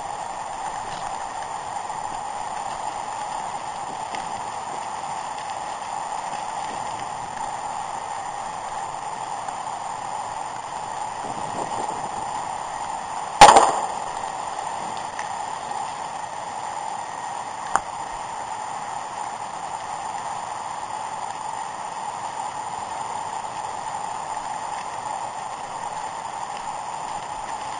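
Mountain bike riding over a rocky trail, a steady even noise throughout, with one sharp, loud clank about thirteen seconds in and a small click about four seconds later.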